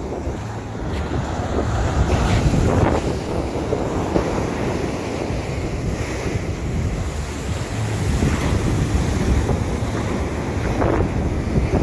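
Waves breaking and washing up on a sandy beach, with wind buffeting the microphone in a steady low rumble.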